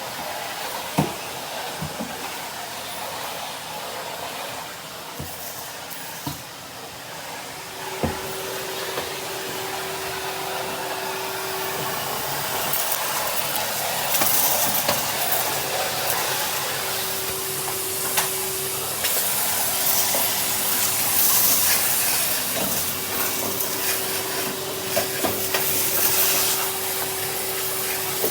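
Numatic Henry cylinder vacuum cleaner running: a steady rushing hiss over a steady hum, with a few sharp clicks in the first several seconds. The rush grows louder and brighter about halfway through.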